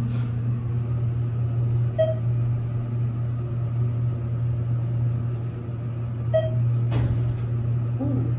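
ThyssenKrupp-modernized elevator car travelling downward with a steady low hum. A short beep sounds about two seconds in and again at about six and a half seconds as the car passes floors, and a sharp click comes about seven seconds in.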